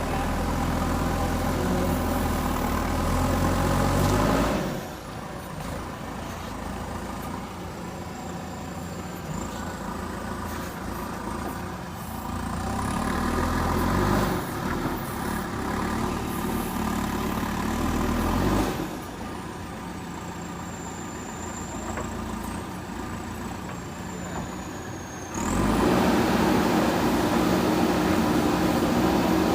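JCB backhoe loader's diesel engine running, rising in level and pitch as the machine works under load and dropping back between efforts, with several abrupt jumps in loudness.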